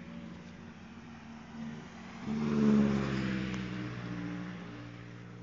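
Motor vehicle engine running steadily. About two seconds in, a vehicle passes close by: the sound swells quickly, is loudest a little before the middle, then fades away.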